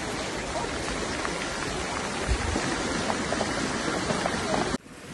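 Muddy flash-flood water rushing down a street in a steady, even rush that cuts off suddenly near the end.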